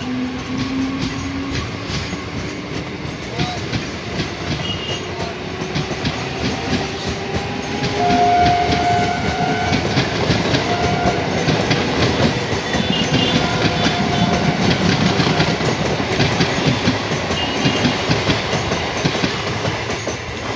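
Electric multiple-unit local train with Bombardier electrics accelerating away from a station. The whine of its traction motors rises in pitch, and the wheels clatter rhythmically over the rail joints, growing louder as the coaches run past.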